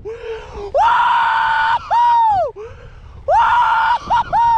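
A man whooping in excitement: a run of long, high shouts, each sliding up, holding, then dropping away at the end, with a couple of short yelps between them.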